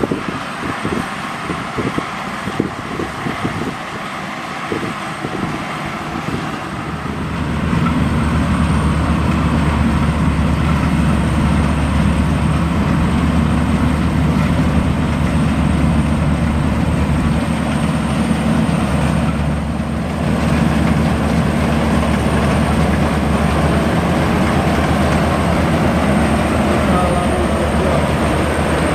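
Maxxi Bimo rice combine harvester running while it harvests: a steady engine and threshing drone. It is fainter and more uneven at first, then louder and steady from about seven seconds in.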